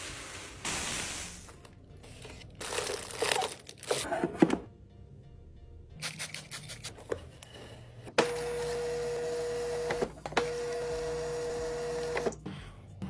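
Rustling and clicking as items and packaging are handled. Then a small electric motor runs with a steady whir for about two seconds, stops briefly, and runs again for about two seconds.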